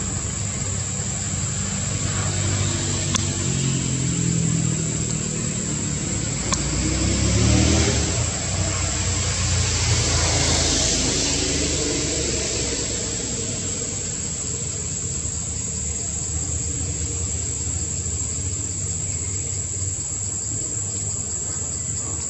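A motor vehicle passing: its engine noise swells to a peak about seven or eight seconds in, then fades away. Under it runs a steady, high insect drone.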